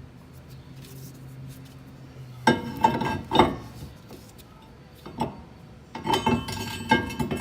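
Cast-iron brake rotor clanking and ringing against the wheel hub as it is fitted on, metal on metal: a cluster of clinks about two and a half seconds in and another near the end.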